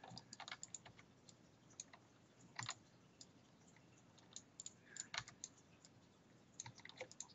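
Faint, irregular clicking of a computer keyboard and mouse as shortcut keys and buttons are pressed, with a few louder clicks about two and a half and five seconds in.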